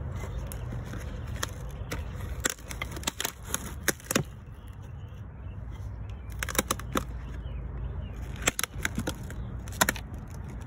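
Brittle old wrapping crackling and crinkling as hands peel and unfold it, in irregular clusters of sharp crackles.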